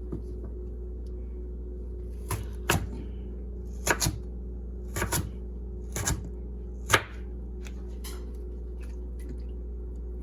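A knife cutting through hard raw rutabaga and knocking on the cutting board: about ten sharp knocks at uneven spacing, the loudest about seven seconds in, over a steady low hum.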